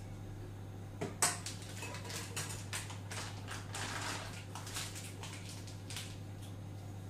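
Kitchen handling noises as choux dough is scraped from a spatula into a plastic piping bag: a sharp clink about a second in, then a series of short scrapes and rustles as the spatula is set down and the filled bag is handled. A steady low hum runs underneath.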